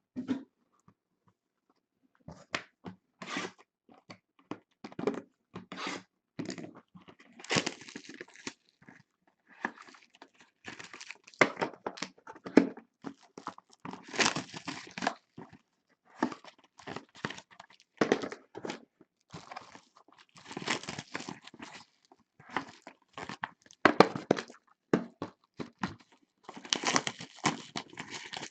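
Trading card boxes and pack wrappers being torn open and handled: irregular bursts of tearing, crinkling and rustling with short pauses between them.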